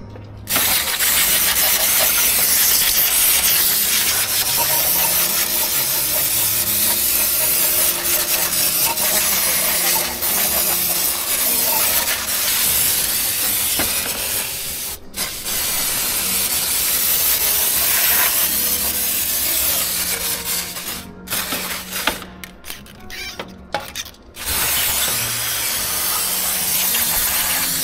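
Pressurised spray hissing hard and steadily over engine parts being cleaned, broken off once about halfway and then cut into short stop-start bursts in the last third.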